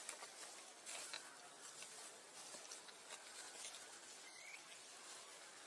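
Faint rustling and light crackles of dry leaf litter as small monkeys move through it, over a steady faint hiss.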